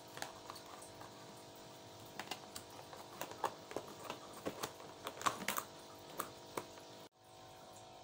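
Irregular clicks and taps of a clear plastic food-storage box and its lid being handled and pressed shut, over faint background music.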